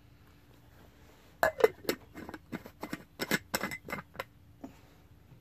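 A quick run of light clinks and rattles from small hard objects being handled. It starts about a second and a half in and stops a little after the four-second mark.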